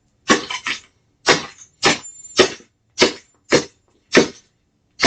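A plastic LED alarm clock being smashed with a golf club: about eight hard cracking strikes, roughly two a second.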